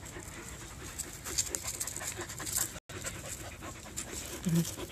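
A dog panting quickly and steadily close by, breathing hard after running and playing: the dogs are worn out.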